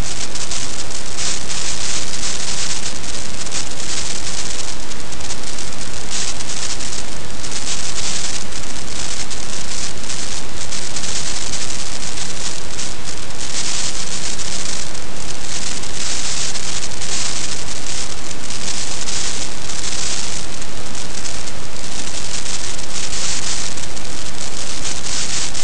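Rain falling on an outdoor nest camera's microphone: a loud, steady hiss that brightens and dims unevenly from moment to moment.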